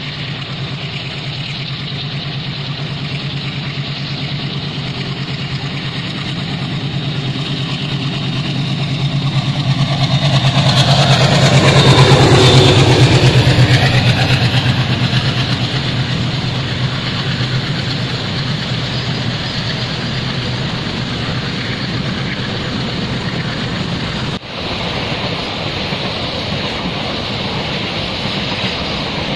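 Diesel locomotive of a container freight train chugging as it approaches and passes, growing louder to a peak near the middle. Then the steady rumble of the loaded container wagons rolling by on the track, with a brief drop about three-quarters of the way through.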